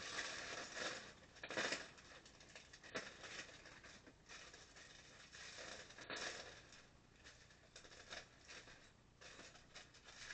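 A plastic bag of Lego pieces being opened and handled: faint, irregular crinkling and rustling of the plastic, with a few sharp ticks.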